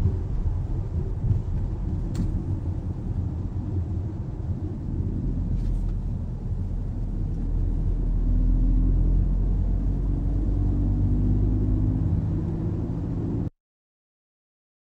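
Car interior noise while driving: a steady low rumble of engine and road. It grows a little louder, with a steady engine note, about eight seconds in, then cuts off abruptly to silence near the end.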